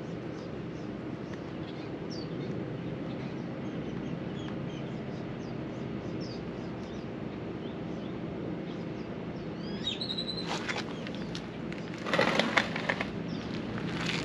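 Birds chirping over a steady low hum. About twelve seconds in comes a louder burst of clattering and handling noise as hose fittings are connected.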